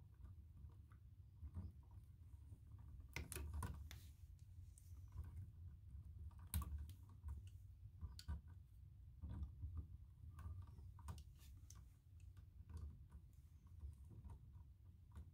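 Pliers gripping and twisting copper electrical wires together in an outlet box: faint, irregular metallic clicks and ticks, about one every second or two, over a low steady hum.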